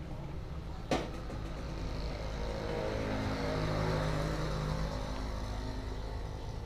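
A motor vehicle passing, its engine sound building up and fading over a few seconds, with one sharp click about a second in.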